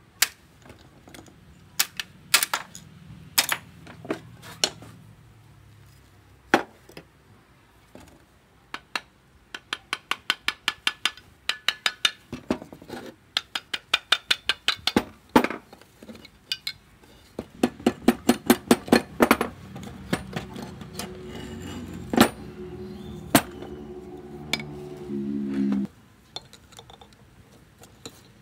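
Metal tools and engine parts clinking and being tapped, with sharp single clinks and runs of quick regular taps, about five a second. Later comes a steady hum that lasts about six seconds and cuts off suddenly.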